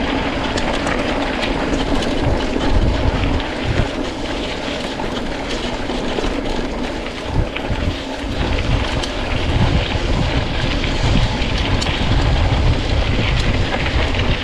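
Mountain bike riding fast over a rough dirt trail: wind buffeting the microphone over a steady, uneven rumble, with light rattling clicks from the bike on the bumpy ground.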